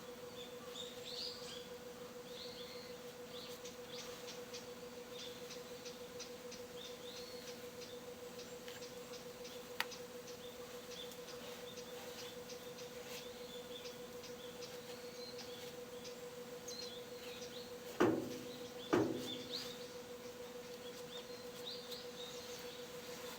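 Small birds chirping in the background over a steady low hum, with two sharp knocks, a second apart, near the end.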